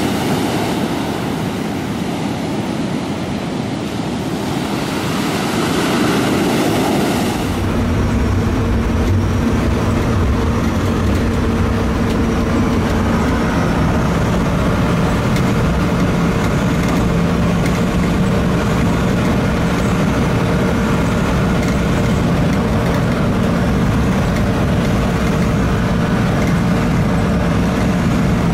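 Ocean surf breaking, with wind, for the first seven seconds or so. It then gives way to the steady low rumble and hum of a moving vehicle, heard from inside the cabin.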